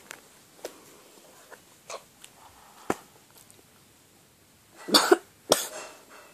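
A boy coughing twice near the end, two short bursts close together, as he is coming down with a cold; a few faint clicks come before.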